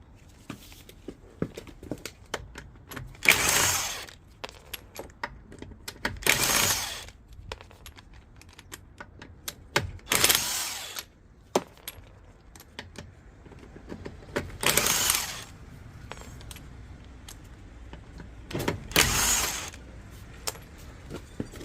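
Wheel nuts being undone on a car wheel: five separate roughly one-second bursts of tool noise about four seconds apart, one per nut, with metallic clicks and clinks of nuts and tools in between.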